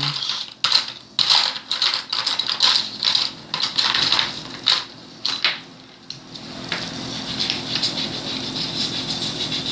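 Colouring in on paper by hand: quick scratchy back-and-forth strokes. The strokes are loud and irregular for the first six seconds or so, then turn softer and more even.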